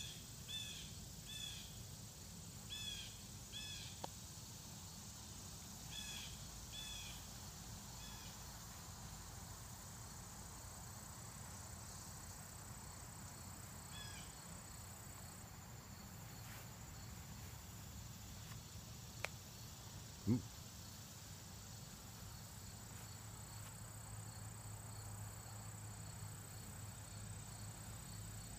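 Faint outdoor ambience with a small bird's short repeated chirps, in pairs, over the first eight seconds and once more about halfway through. A single short low thump about twenty seconds in.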